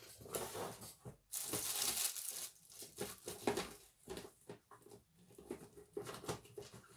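Craft paper and tape being handled and torn: a run of short rustles and scrapes, with a longer tearing sound from about one and a half to two and a half seconds in.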